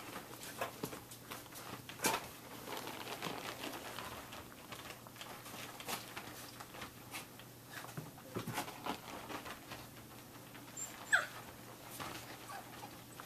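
Samoyed puppies scrambling and playing, with scattered light taps and scuffles, and one short falling whine about eleven seconds in.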